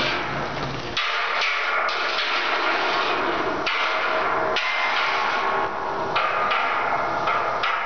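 Steel sculpture clanking as it is towed along on its steel disc wheels: about ten irregular metal knocks, each ringing on briefly.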